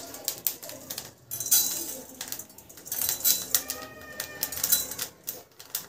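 Whole coriander seeds poured from a small jar into a dry steel kadhai of roasting fenugreek seeds, pattering and rattling on the metal in a run of quick irregular clicks.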